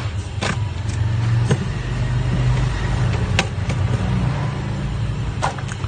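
Plastic clips of a laptop's bottom cover clicking and snapping as it is pried open, several sharp clicks spread out, with a steady low rumble underneath.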